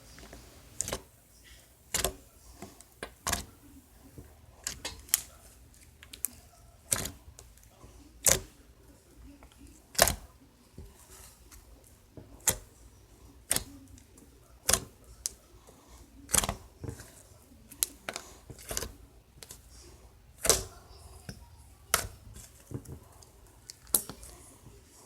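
Slime being squeezed and pressed, its trapped air pockets popping in sharp clicks about once every second or so.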